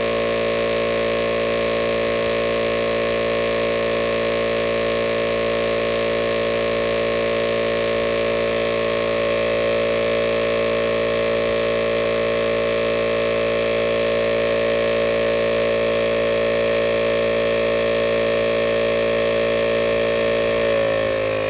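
ARB CKMP12 portable 12V air compressor running steadily while inflating an aired-down off-road tire, the pressure climbing toward 30 psi. Its hum drops slightly in pitch about a second before the end.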